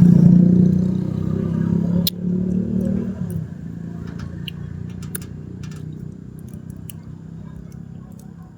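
A motor vehicle engine runs with a steady low hum, loud for about three seconds and then fading away, as if passing and receding. Scattered small clicks sound over it.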